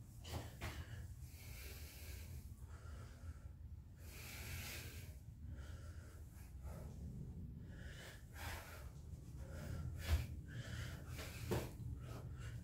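A man breathing hard from exertion during repeated burpees, with a rush of breath in and out every second or so. A low thump about ten seconds in as he lands on the floor mat.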